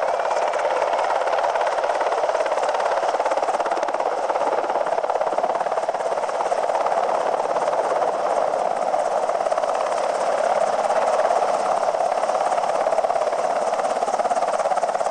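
UH-60 Black Hawk helicopter running, its rotor and turbine engine noise steady throughout.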